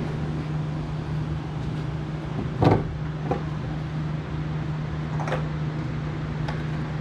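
A steady mechanical hum, with a few sharp clunks and knocks from work on the pickup's door as the old side mirror is removed, the loudest a little under three seconds in.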